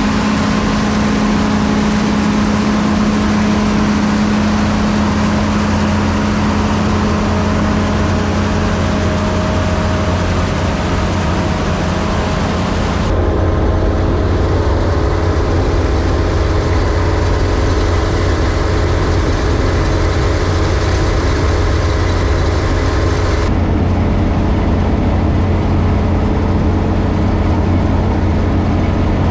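John Deere 3300 combine running steadily while harvesting corn: a constant engine drone with a steady hum. The sound shifts abruptly about halfway through and again near the end.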